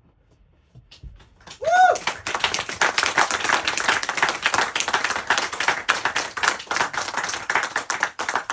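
Audience applause breaking out about a second and a half in, after a quiet pause, with one short whoop near its start; the clapping thins out near the end.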